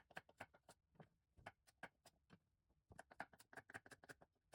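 Kitchen knife chopping vegetables on a cutting board: a run of faint, irregular taps that come closer together near the end.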